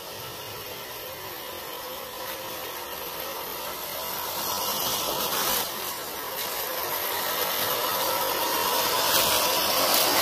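Electric motor and gears of a 1/10-scale RC crawler whirring steadily as it drives, gradually getting louder.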